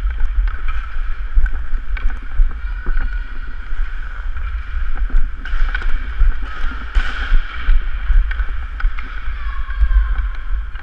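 Hockey skates carving and scraping across the ice, with irregular sharp clicks of a stick on the puck, heard through a body-worn action camera under a heavy low rumble of wind and motion noise.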